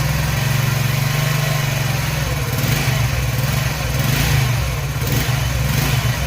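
Honda CD70 single-cylinder four-stroke engine idling with the clutch lever pulled in, a rough noise coming from inside the engine that swells from about two and a half seconds in: the sign of a worn clutch release bearing.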